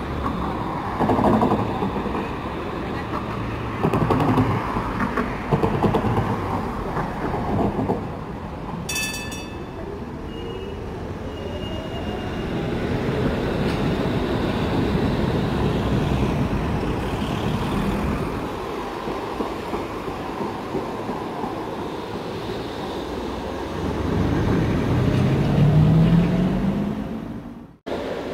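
Trams running on street track: wheels knocking over rail joints and points, a short ringing chime about nine seconds in, and an electric traction-motor whine that rises in pitch near the end.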